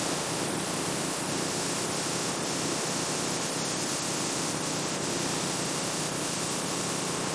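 A steady, even hiss of noise, brightest in the high range, with no rhythm or distinct tones.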